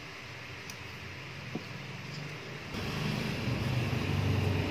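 Low rumbling noise that comes in suddenly just before three seconds and grows louder, over a steady background hiss; a single click about a second and a half in.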